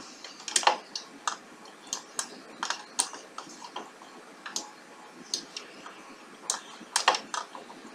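Computer mouse clicking at an uneven pace, single clicks and some quick pairs.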